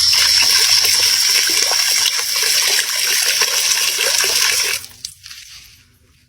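Loud rushing water with a strong hiss, which stops abruptly about five seconds in.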